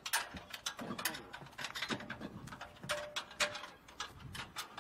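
Irregular metallic clicks and knocks of hand tools working on a walking tractor's fittings while bolts are put in.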